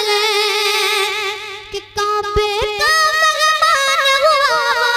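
A boy singing a naat unaccompanied, holding long high notes with wavering ornaments, with a brief break for breath about two seconds in.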